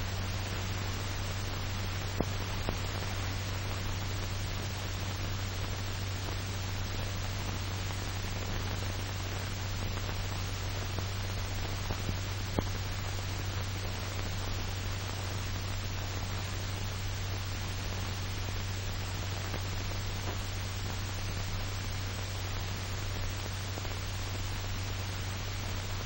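Steady hiss with a low hum underneath, the background noise of an old film soundtrack, broken by two brief clicks, about two seconds and about twelve seconds in.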